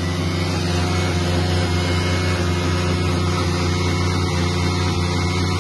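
Single-cylinder motorcycle engines of a Bajaj Pulsar RS200 and a Yamaha MT-15 held at steady revs during a burnout, with the rear tyres spinning against the ground.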